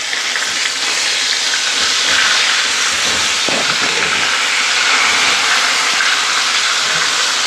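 Stuffed zucchini flowers deep-frying in hot oil in a frying pan: a steady sizzling hiss.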